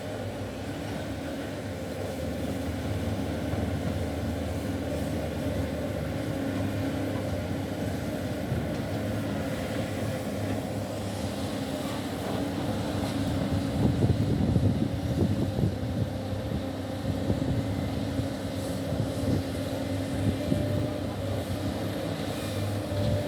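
Sany excavator's diesel engine running steadily under working load. Irregular knocks and clanks grow louder around the middle.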